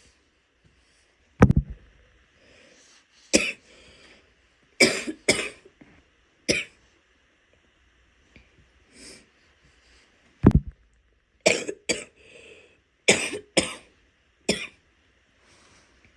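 A woman's wet coughs, about eleven sharp coughs coming singly or in quick pairs, with faint breaths between them.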